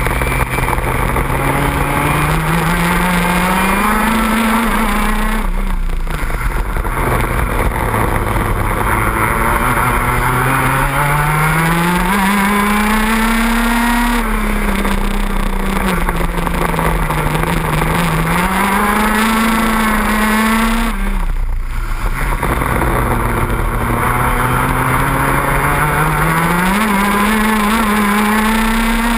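A 125cc two-stroke racing kart engine at speed, heard from on board, its pitch climbing steadily as the kart accelerates down each straight and falling back as it slows for corners, several times over. Twice the note drops away sharply as the driver lifts off, once about a fifth of the way in and again about three quarters of the way through.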